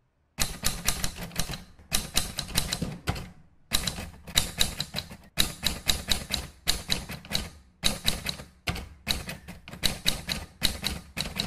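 Typing sound effect: rapid key clicks in runs of about a second, with short pauses between them.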